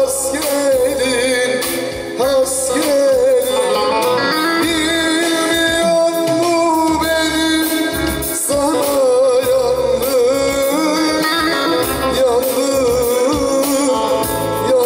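A man singing a Turkish folk song (türkü) in long, ornamented held notes that waver in pitch, accompanied by a plucked bağlama (long-necked saz).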